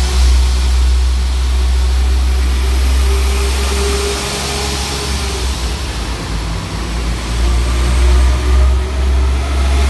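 Class 172 Turbostar diesel multiple unit pulling away from the platform, its underfloor diesel engines under power giving a steady deep rumble as the carriages pass.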